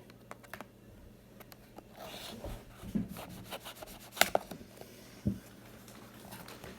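Cardboard hockey card box being handled and opened: rubbing and scraping, with a few sharp clicks, the loudest about four seconds in.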